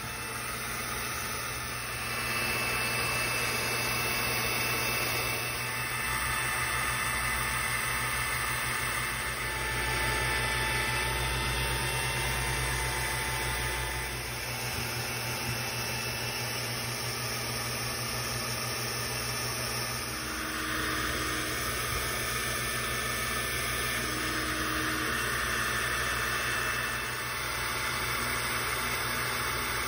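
xTool D1 Pro diode laser engraver running a cutting job: a steady fan-and-motor whir with faint whining tones. The sound shifts twice, about halfway and again about two thirds of the way through.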